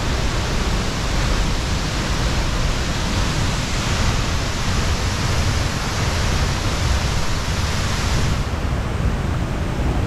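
Waterfall pouring into a rock plunge pool: a loud, steady rush of falling water with no break.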